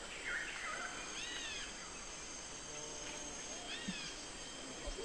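Jungle ambience: insects droning steadily in several high tones, with short arched bird chirps just after the start, about a second in, and again near four seconds.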